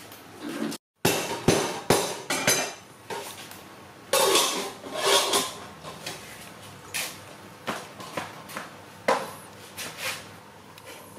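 Irregular clatter of sharp knocks and clinks, like hard objects being handled, coming thickly in the first few seconds and then spaced a second or so apart.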